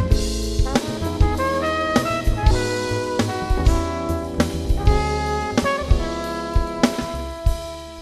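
Live jazz band: trumpet playing held melody notes over a drum kit, with frequent drum and cymbal hits. The music gets gradually softer toward the end.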